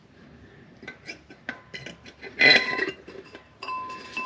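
Metal parts clinking and clattering as a new transmission filter is handled and fitted onto a tractor's filter housing. There are scattered light clicks, a louder clatter with a brief metallic ring about halfway through, and another short ring near the end.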